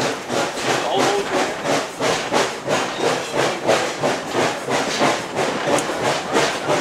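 Exhaust of 1916 2-6-2 Prairie-type steam locomotive No. 4 chuffing steadily, about three beats a second, as it pulls the train.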